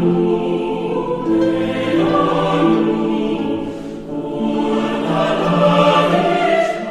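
Orchestral film score with a choir singing long held notes, swelling twice with a dip about four seconds in.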